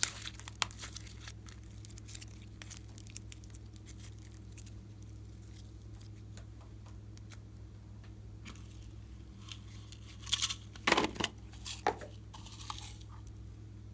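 Slime being handled: scattered sticky clicks and pops, then a burst of crackling and squelching about ten seconds in, over a steady low hum.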